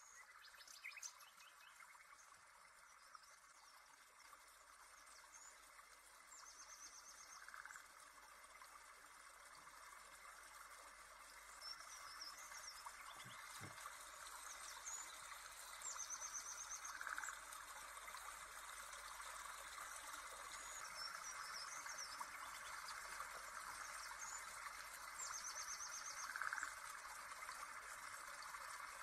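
Faint nature ambience: a steady trickling stream with bird calls, the same short chirping trill coming back about every nine or ten seconds. The level creeps up slowly.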